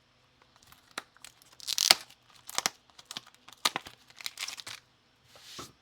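Foil trading-card pack wrappers being torn open and crinkled: a quick series of sharp rips and crackles, the loudest about two seconds in.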